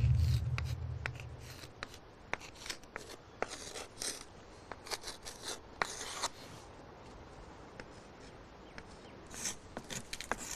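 Chalk scratching and tapping on a chalkboard as numbers are written, in short irregular strokes. A low rumble fades out over the first second or two.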